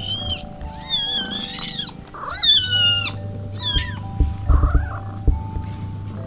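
Newborn kittens mewing: about four high, wavering cries that rise and fall in pitch, the loudest around the middle. Soft background music with long held notes runs underneath, and a few dull bumps of handling follow in the second half.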